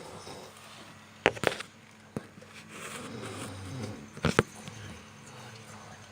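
A person snoring, with one long, rough snore through the middle. Two quick pairs of sharp clicks stand out louder than the snoring, about a second in and again about four seconds in.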